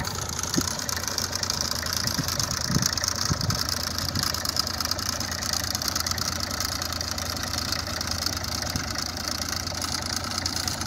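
Tractor's diesel engine running steadily at low speed while pulling a trolley loaded with brushwood.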